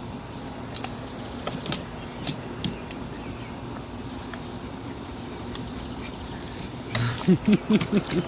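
A dog biting and cracking a wooden stick: a handful of sharp snaps in the first few seconds over a steady hum. Near the end comes a quick run of about six short pitched sounds, loud and close together.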